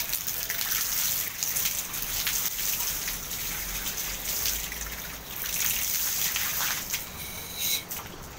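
Water from a garden hose spraying against a tiled wall and splashing onto a wet tile floor, a steady hiss and splatter that cuts off at the end.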